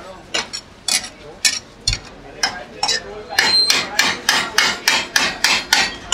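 Rhythmic sharp knocks: a few scattered strikes at first, then a steady, rapid run of about four a second from about halfway in.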